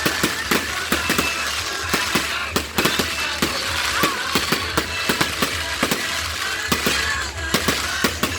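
Fireworks going off: rapid, irregular bangs and crackles, several a second, with a few faint short whistles among them.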